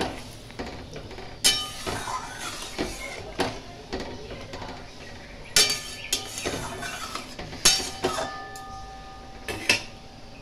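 A spatula stirring a thin curry in a metal kadai, knocking and scraping against the pan with about eight sharp knocks at irregular intervals. The pan rings briefly after some of the knocks.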